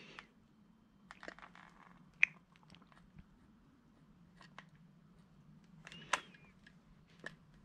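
Faint scattered clicks and taps from a hot glue gun being worked against a car's handbrake lever, the sharpest about two seconds in and again about six seconds in, over a low steady hum.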